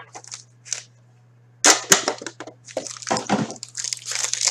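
A few light clicks, then, from about a second and a half in, dense crinkling and tearing of a foil card-pack wrapper being pulled open by hand.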